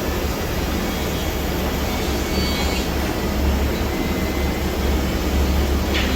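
Biesse Rover A Smart 5-axis CNC router running while machining a curved wooden part: a steady machine drone with a strong low hum and faint high tones.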